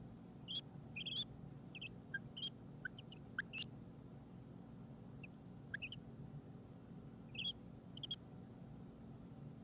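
Baby peach-faced lovebird chicks giving short, high chirps and squeaks in scattered little clusters, the soft sounds they make as they settle to sleep; the chirps stop near the end. A low steady hum runs underneath.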